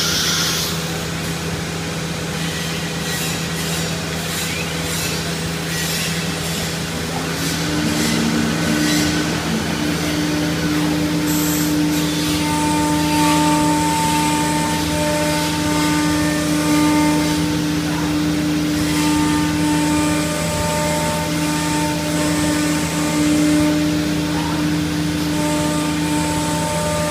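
3-axis CNC router with its spindle and dust extraction running as it routes grooves into a wooden door panel. A steady machine hum, with a whine that comes in about seven seconds in and drops out briefly now and then as the cut goes on.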